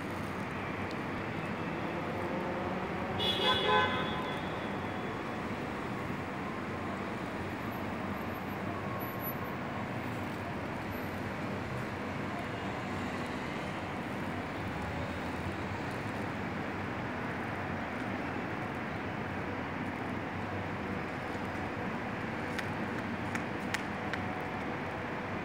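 Steady outdoor street ambience with traffic noise; about three seconds in a vehicle horn toots briefly, the loudest sound.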